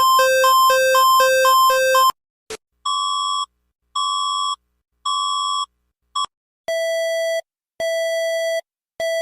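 Electronic emergency alert tones: a fast two-tone warble cuts off about two seconds in, followed by three evenly spaced beeps, a short blip, and then three lower-pitched beeps.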